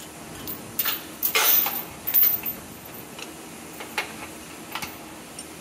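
Steel link chain clinking and rattling as it is handled and hung on a bent steel ring held in a bench vise: a quick run of clinks about a second in, then a few single metallic ticks.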